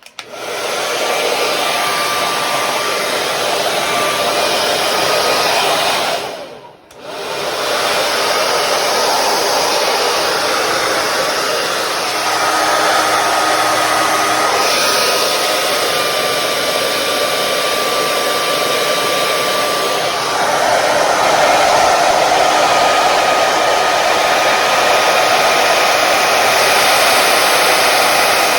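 Hair dryer switched on and blowing steadily with a faint whine, blowing out wet acrylic paint on a canvas. Its sound drops away briefly about seven seconds in, then comes back, and its tone shifts slightly about twenty seconds in.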